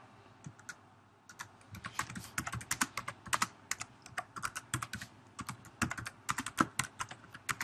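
Typing on a computer keyboard: quick, irregular key clicks that start about a second in and come in short runs with brief gaps between words.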